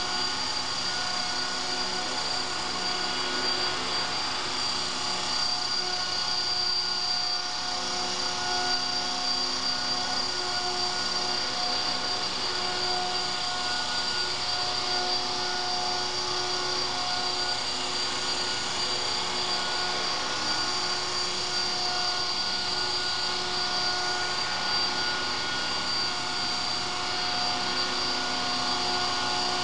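CopterX 450 Pro electric RC helicopter hovering low: a steady whine from its brushless motor and drive gears mixed with the whir of the spinning rotor blades, holding an even pitch and level throughout.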